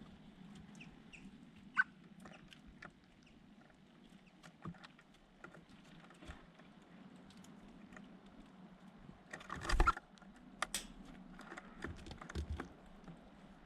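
Small birds making scattered light taps and clicks, with a brief chirp about two seconds in and a short flurry of noise about ten seconds in.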